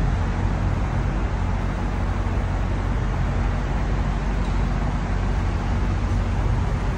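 Steady low hum under a constant rush of traffic noise.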